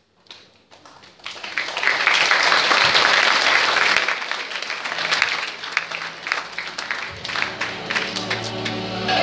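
Crowd applauding, rising quickly about a second in and staying loud, thinning out as music starts near the end.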